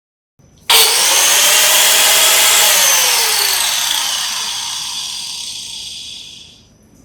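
INGCO WLC15008 electric wall chaser's 1500 W motor and cutting discs switched on with no load, running at speed with a high whine. About three seconds in it is switched off, and its pitch and loudness fall smoothly as it winds down to a stop.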